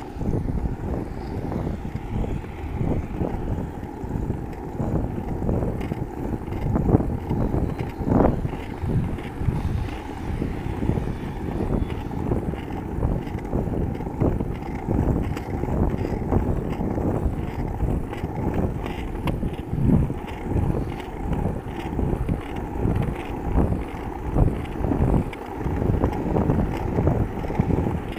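Ripstick casterboard wheels rolling over pavement in a continuous low rumble that surges and dips, mixed with wind buffeting the microphone as the rider moves.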